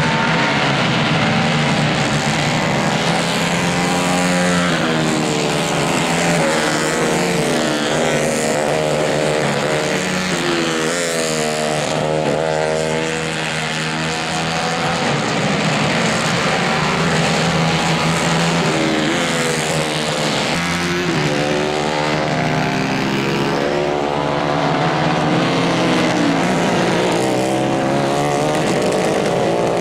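Racing kart engines running hard on a dirt track, several at once, their pitch rising and falling over and over as the drivers accelerate and lift through the corners.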